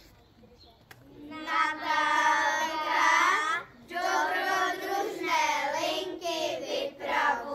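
A child singing a tune without accompaniment, starting about a second in, in sung phrases with short breaks between them.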